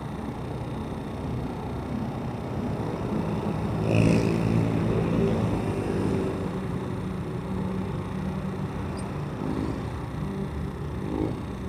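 Motorcycle engine running at low speed, with road and wind noise. The engine note rises and gets louder briefly about four seconds in, then settles back to a steady run.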